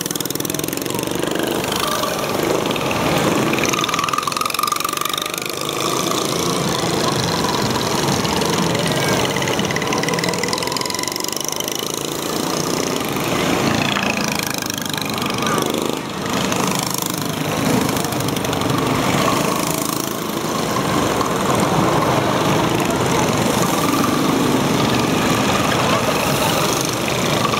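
Small go-kart engines running and revving as the karts drive past, their pitch rising and falling.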